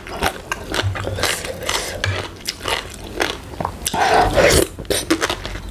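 Close-up chewing and crunching of green papaya salad (som tam) with noodles, with short clicky mouth sounds throughout and a louder burst about four seconds in as a spoonful goes into the mouth.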